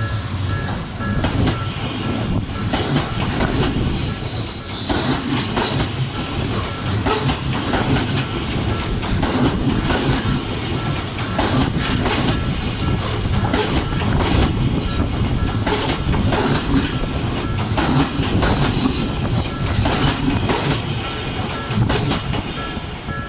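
Odakyu 3000 series electric train running at speed, its wheels clattering over rail joints in a steady run of clicks over a heavy rumble. There is a brief high squeal about four and a half seconds in.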